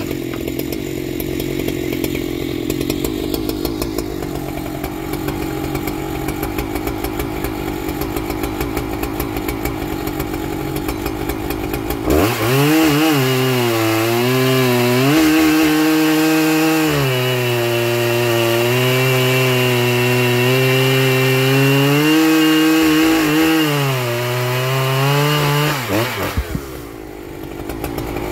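Stock Husqvarna 3120XP big two-stroke chainsaw. For about twelve seconds an engine runs at a lower steady speed; then the saw goes to full throttle and cuts into a large log, its pitch wavering as the chain loads up. Near the end the revs drop off briefly and rise again.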